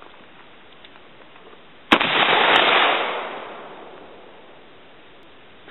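A single shotgun shot, a round of double-aught buckshot, about two seconds in. Its sharp report echoes and dies away over about two seconds.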